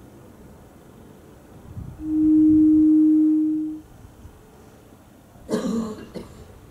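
A loud, steady pure tone held at one pitch for a little under two seconds, then, near the end, a short cough.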